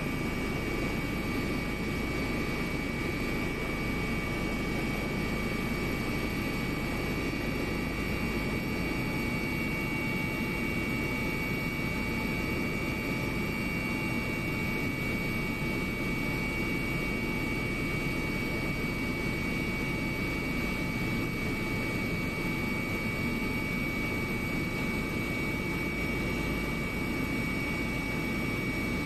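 Jet airliner in flight heard from inside the cabin: a steady, unbroken engine and airflow drone with a few faint steady whining tones above it.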